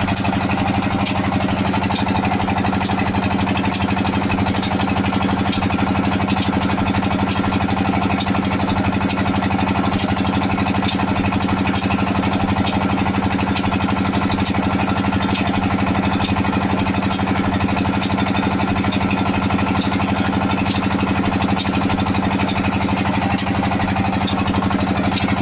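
Petter 25 HP tubewell diesel engine running steadily at a constant speed, with a sharp light tick recurring a little more often than once a second over the engine's beat.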